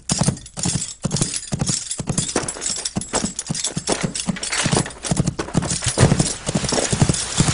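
Horse hoofbeats at a fast gait: a quick, steady run of knocks over a hiss.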